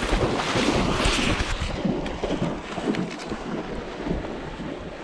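Water sloshing and splashing close to the microphone, loudest in the first couple of seconds, with rumbling handling noise as the camera is moved low over the flooded timber.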